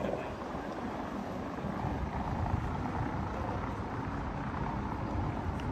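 Steady low rumble of city street ambience, a little louder around the middle.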